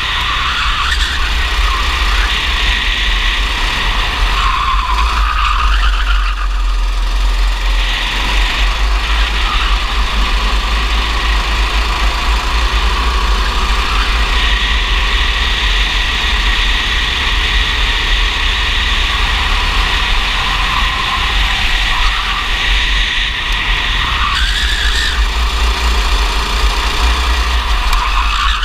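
Racing kart engine running hard, heard from a camera mounted on the kart, with heavy wind noise on the microphone; the engine note rises and falls several times as the kart brakes and accelerates through the corners.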